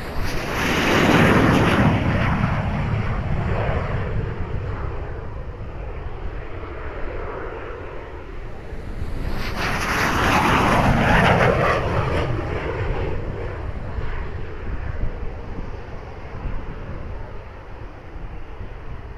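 Two Cessna A-37 Dragonfly jets, each powered by twin General Electric J85 turbojets, taking off one after the other and passing the microphone. Each pass swells to a loud peak and then falls away with a dropping pitch, the first about a second in and the second about ten seconds in.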